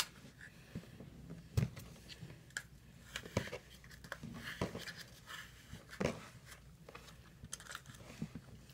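Hands kneading and pressing kinetic sand on a tabletop: soft crumbly scraping and squishing, with a few irregular knocks.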